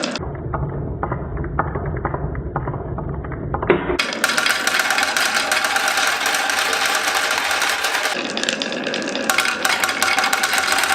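Many marbles rolling and clattering down marble-run tracks, a dense, continuous rattle of rapid clicks. For the first four seconds it is muffled with a low rumble, then it turns brighter and sharper.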